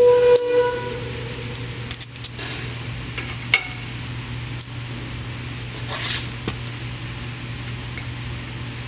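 Steel spacer bars clinking and tapping against a steel beam as they are handled and set in place. A ringing metallic clink near the start is followed by a few separate sharp clicks, over a steady low hum.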